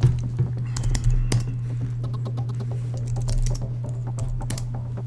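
Typing on a computer keyboard: a run of irregular keystrokes with a steady low hum underneath.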